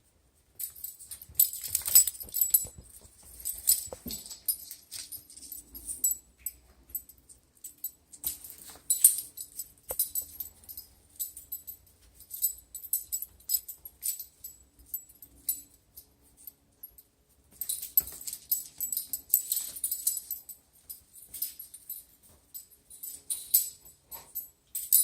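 Small bells or loose bits of metal jingling in irregular bursts, with quieter gaps between.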